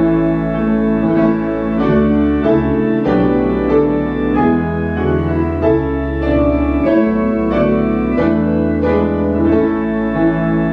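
Slow prelude played on a church keyboard instrument: chords changing about every second or two over long held bass notes.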